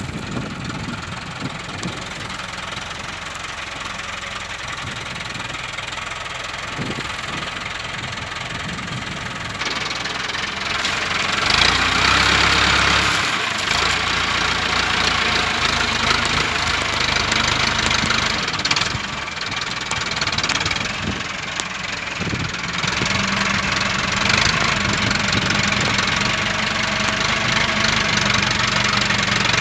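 Massey Ferguson 675 tractor's four-cylinder diesel engine running with a diesel clatter, getting louder about a third of the way in and staying up as the front loader works, gripping and lifting a wrapped silage bale.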